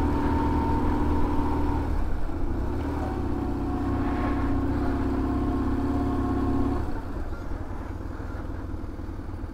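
BMW motorcycle engine running at low speed under light throttle, heard from the rider's seat. The note dips briefly about two seconds in, then drops and quietens about seven seconds in as the throttle closes and the bike slows.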